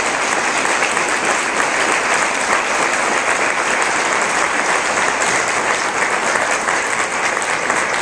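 Audience applauding: many people clapping at once, at an even level.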